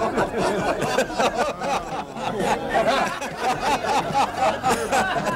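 Several men chuckling and laughing softly, mixed with indistinct murmured chatter.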